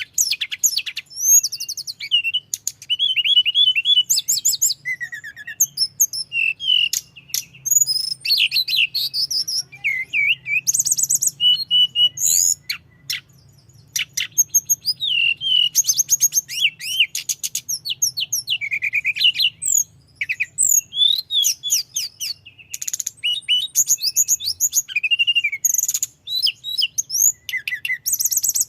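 Tledekan gunung songbird singing continuously, a long rolling song of rapid trills, sweeping whistles and chattering notes with only brief pauses. A faint low hum runs underneath.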